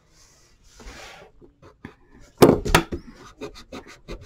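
Pencil scratching on paper as lines are drawn, with two loud sharp knocks about two and a half seconds in and a run of lighter clicks after them.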